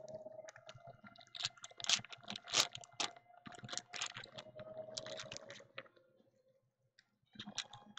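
Foil trading-card pack wrappers crinkling and cards being handled, a rapid, irregular series of crackles and clicks that stops briefly about six seconds in and starts again near the end.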